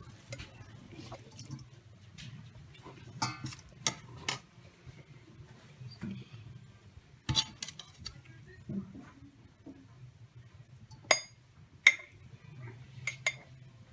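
A metal slotted spoon clinking against a stainless steel colander and a glass jar while salmon roe is scooped into the jar: scattered sharp clinks, with two louder ones close together near the end, over a faint low hum.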